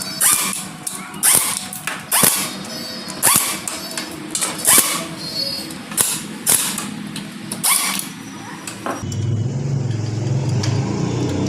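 A run of sharp metallic clanks, about one a second, then at about nine seconds a TVS Star City 110cc motorcycle engine takes over, running steadily at a low idle.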